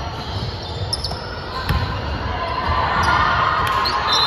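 A basketball bouncing on a hardwood gym floor during play: a few separate thuds, the clearest about a second and a half in, in a large gym.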